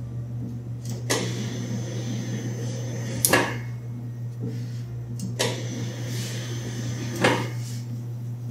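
Electric reversible dough sheeter running with a steady motor hum while puff pastry dough is passed back and forth through its rollers. A sudden louder rush of noise comes about every two seconds, four times.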